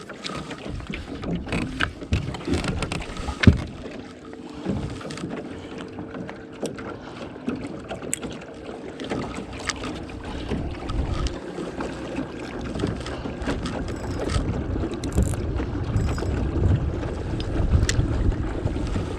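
Wind buffeting the microphone outdoors by the water, with a low rumble that grows stronger toward the end, and many scattered small clicks and knocks.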